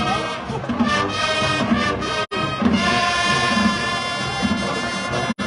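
Marching band brass playing held chords over a repeating low beat. The sound drops out completely for an instant twice.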